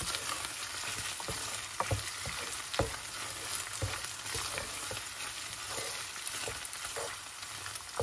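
Minced beef with ginger and garlic sizzling in a saucepan while a wooden spoon stirs it, with a steady hiss and the spoon knocking and scraping against the pan now and then.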